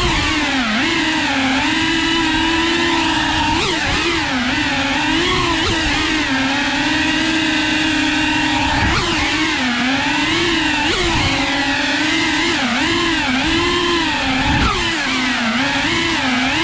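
FPV drone's brushless motors and propellers whining continuously, the pitch rising and falling over and over as the throttle changes.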